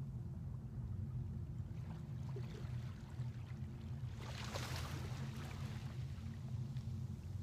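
Small harbour waves lapping on a sandy beach, one washing up and hissing back about four seconds in, over a steady low hum.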